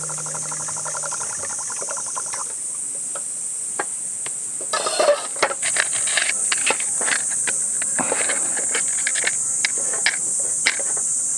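Insects chirring steadily in the background. From about five seconds in, a wooden matchbox is handled and matches are struck against it, giving a series of scratchy strikes and sharp clicks, to light an alcohol camping stove.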